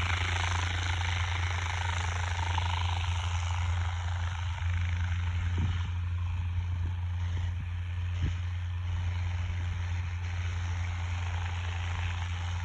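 Steady low drone of a propeller aircraft's engine running, with a rushing hiss that fades gradually after about five seconds.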